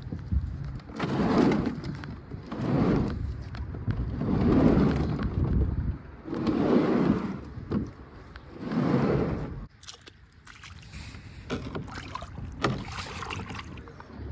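A small jon boat being put into the water: five rising-and-falling swells of water noise about two seconds apart, then quieter from about ten seconds in, with small knocks.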